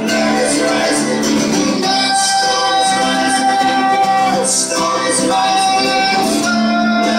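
A man singing live into a microphone while strumming an acoustic guitar, with long held sung notes.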